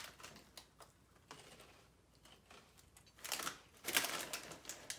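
Crunchy chips being bitten and chewed: a few faint crackles at first, then a burst of crisp crunching from about three seconds in.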